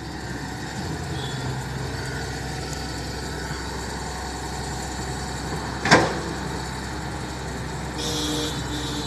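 Excavator engine running steadily, with one sharp, loud clang about six seconds in, the loudest moment, and a brief scraping rattle about eight seconds in.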